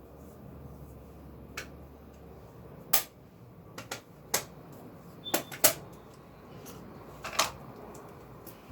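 A series of irregular sharp clicks and knocks, about ten in all, the loudest about three seconds in and a cluster near five and a half seconds, over a faint steady background hum.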